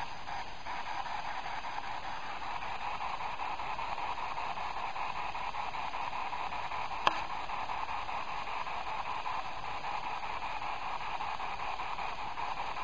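Steady static hiss, with a single sharp click about seven seconds in.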